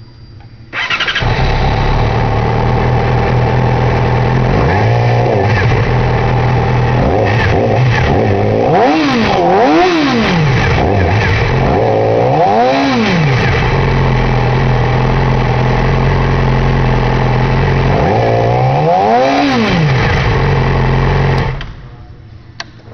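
2008 Yamaha YZF-R6's 600 cc inline-four engine starting about a second in and idling steadily, with the throttle blipped several times in quick rising-and-falling revs, then shut off near the end.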